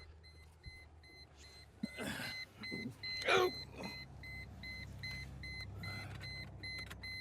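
Rapid electronic warning beeps, about four a second, from the 2002 Mercedes C240's chime, starting about a second and a half in. Two brief rustling handling noises come over it, the louder about three seconds in.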